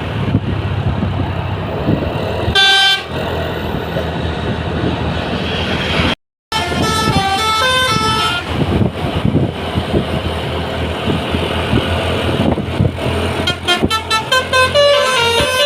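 Bus's Basuri telolet musical horn playing a quick tune of stepping notes, over the steady low noise of the bus's engine and tyres. A short single horn blast comes about three seconds in, the tune sounds again after about seven seconds and once more near the end, and the sound cuts out for a moment around six seconds.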